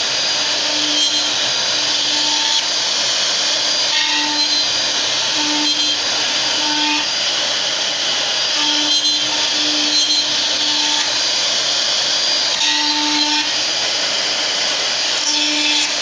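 CNC router running steadily, a loud continuous rushing machine noise, with short humming tones that come and go every second or so as the machine moves.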